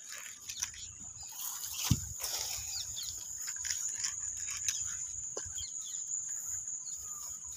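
A steady high-pitched drone of insects, with rustling and handling noise as a fishing rod and a hooked fish are worked through long grass, and a single knock about two seconds in.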